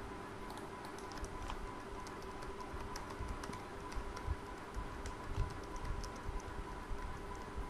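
Typing on a computer keyboard: irregular key clicks, over a faint steady hum.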